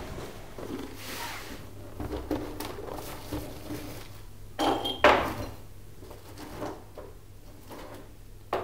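Irregular knocks and light clatter of objects being handled and set down in a small room, the loudest a pair of knocks about five seconds in.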